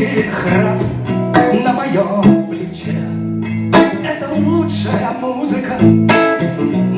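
Blues played live on guitar: plucked chords ringing out, with a fresh attack every second or two.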